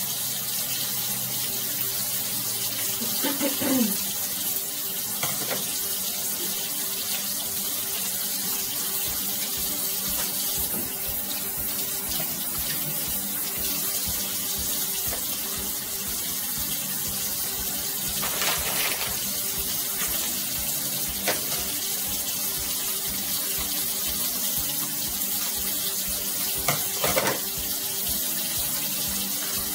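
Water running steadily from a kitchen tap into the sink, with a few brief clatters in the second half.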